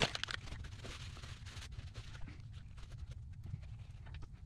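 Faint rustling of a paper towel and small irregular clicks as hands handle and wipe a greasy linear-rail bearing block, over a steady low hum.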